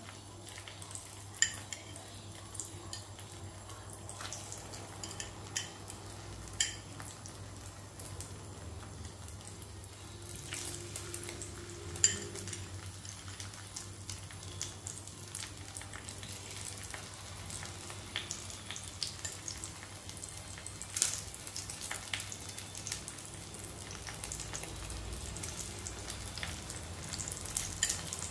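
Slices of pork luncheon meat dipped in beaten egg sizzling in hot oil in a pan, a steady sizzle with sharp crackles and pops now and then, the loudest about twelve seconds in.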